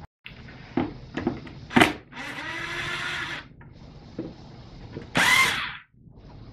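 Cordless impact driver with a Phillips bit backing out the plastic air box cover screws. A few clicks come first, then the driver runs for just over a second about two seconds in, its pitch rising and falling, and runs again briefly about five seconds in.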